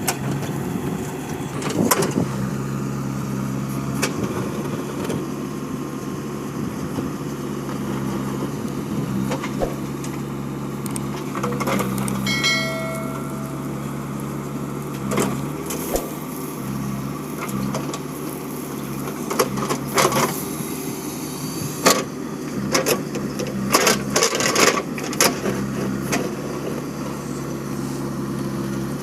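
JCB 3DX backhoe loader's diesel engine running steadily under work, with several sharp metallic clanks and knocks, a cluster of them about 24 seconds in.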